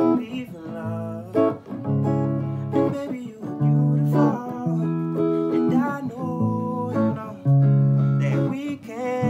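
Electric guitar playing a chord progression between sung lines, each chord ringing on for about a second before the next change.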